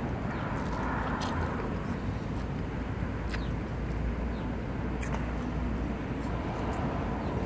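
Steady low rumble of vehicle traffic, with a few faint clicks and smacks of pizza being chewed close to the microphone.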